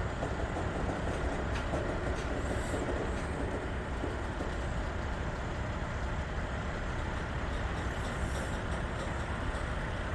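Norfolk Southern freight train's cars rolling past, a steady rumble of steel wheels on the rails.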